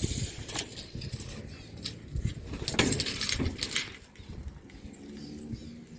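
Steel tape measure being pulled out and handled, with a few sharp metallic clicks and rattles spread through it over a low background rumble.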